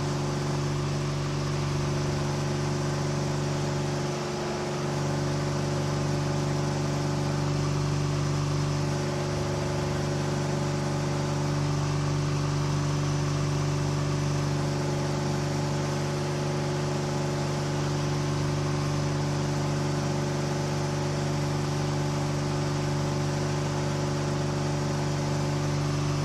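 KR2 light airplane's air-cooled engine running steadily at climb power just after takeoff, with a slight dip in level about four seconds in.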